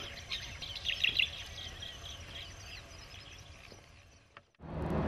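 Faint birds chirping over a low outdoor hiss, fading away to near silence about four seconds in. Near the end a steady road-vehicle rumble starts.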